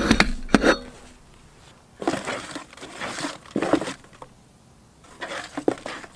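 Four short bursts of rustling and clinking handling noise with pauses between: paper name slips being stirred and drawn out of a container.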